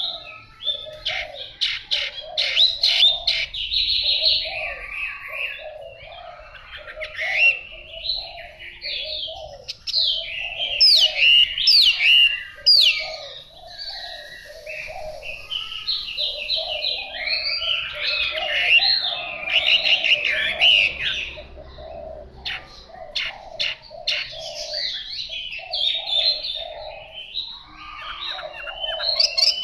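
Chinese hwamei singing: long runs of loud, varied whistled phrases and fast trills, broken by short pauses, over a lower call repeated steadily underneath.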